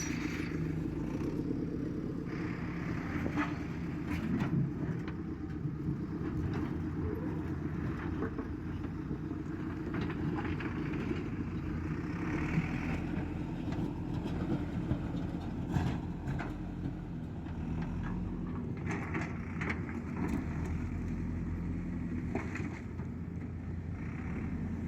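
Diesel engine of earthmoving machinery running steadily while digging, with occasional short clanks and knocks.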